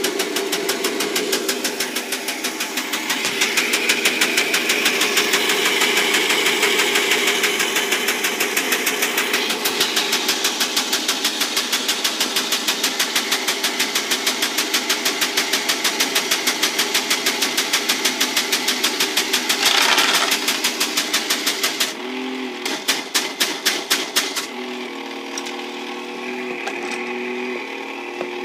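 Technofix 315 Gigant Construction Site, a battery-powered tin toy, running: a small electric motor whirring while the mechanism and vehicles rattle with a rapid, even clicking. About 22 s in the clatter drops away to a quieter motor hum whose pitch steps up and down.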